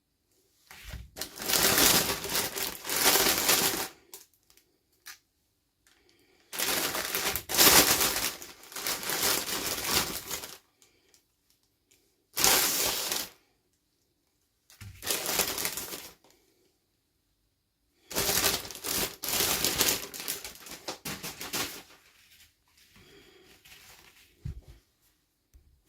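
Toy packaging being handled and crinkled close to the microphone, in five bursts of rustling with short silent pauses between them, then fainter handling near the end.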